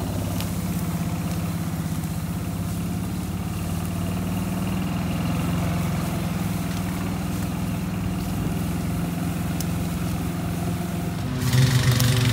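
Engine of the vehicle towing a cut tree trunk on a strap, running steadily at a constant low speed. The sound changes abruptly near the end.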